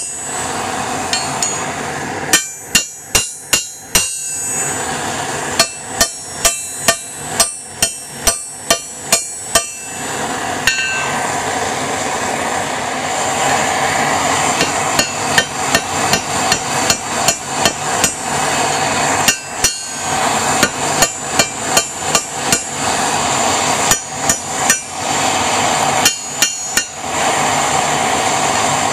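Hand hammer striking a heated rebar tong arm on an anvil, in runs of sharp blows about two a second with short pauses between, flattening the end into the foot of the jaw. From about ten seconds in a steady rushing noise runs beneath the blows.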